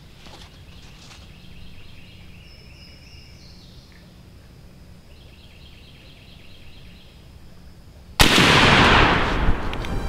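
Songbirds singing faintly in the woods, then about eight seconds in a single loud shotgun shot at a wild turkey gobbler, echoing and dying away over the next second or two.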